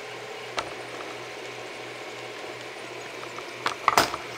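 Stepper motors of a half-scale Printrbot Simple 3D printer running steadily as it prints, a low hum with faint higher tones. A few sharp clicks and knocks come near the end.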